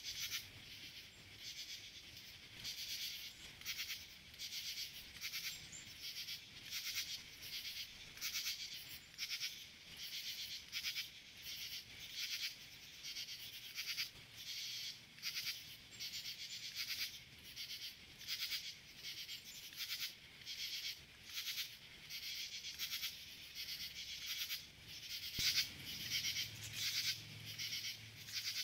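Insects chirping in a steady rhythm, about one and a half short, high, buzzy chirps a second.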